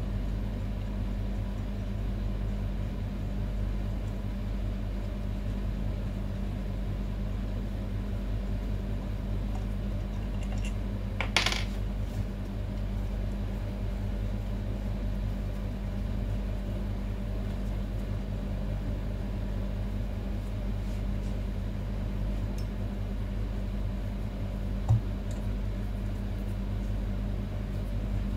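Steady low machine hum in the background. Partway through, one sharp metallic clink with a short ring comes from a steel hand tool on the barber chair's hydraulic pump housing, and a light knock follows near the end.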